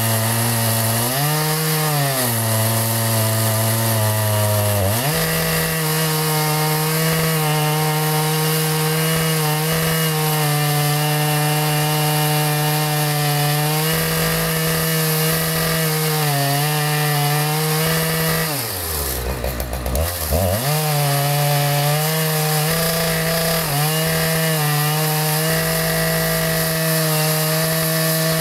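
Chainsaw running under load, ripping a maple log lengthwise. Its engine note holds mostly steady, steps up in pitch about five seconds in, and sags sharply and comes back about nineteen seconds in and again near the end.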